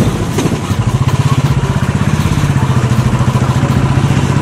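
Royal Enfield Bullet single-cylinder motorcycle engine running steadily under way, with an even, pulsing beat that settles in about a second in.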